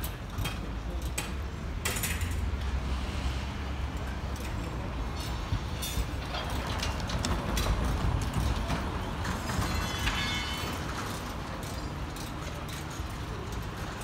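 Dismantling work on railway level-crossing equipment: scattered metallic clinks and knocks over a steady low hum, growing busier and louder in the middle.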